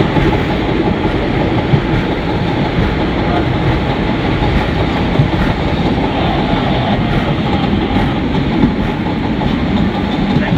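Vintage New York subway train running along the track, heard from inside the front car: a loud, steady rumble of wheels on rails.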